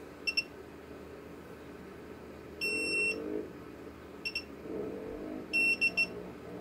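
Built-in buzzer of a T12 digital soldering station giving a series of high electronic beeps as its buttons are pressed to change settings: two short beeps near the start, a longer beep about two and a half seconds in, a couple of short ones, and a longer beep followed by two quick ones near the end.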